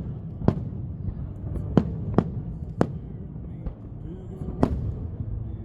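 Fireworks shells bursting in a show: about five sharp, loud reports at uneven intervals, with a few fainter pops between them. Music plays underneath.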